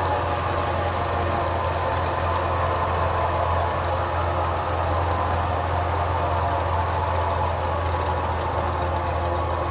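Cessna 206's six-cylinder piston engine and propeller at idle during the landing rollout, heard inside the cabin as a steady drone.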